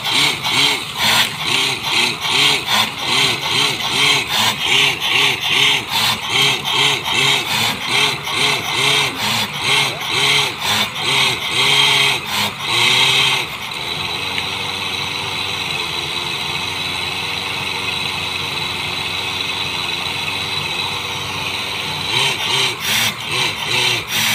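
Tube-well drilling rig at work, with a hiss. It pulses about twice a second, settles into a steady run about halfway through, and starts pulsing again near the end.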